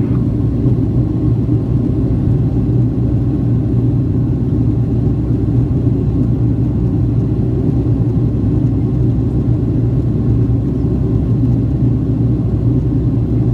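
Steady low drone inside the cabin of a Boeing 757-200 in flight: engine and airflow noise heard from a window seat, unchanging throughout.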